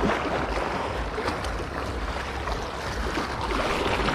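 Small sea waves washing and splashing against shoreline rocks, a steady even wash, with a low wind rumble on the microphone.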